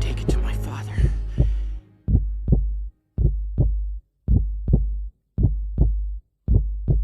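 The last held note of the song's music dies away in the first two seconds. Then a heartbeat sound effect plays: pairs of low thumps, lub-dub, about once a second, with silence between them.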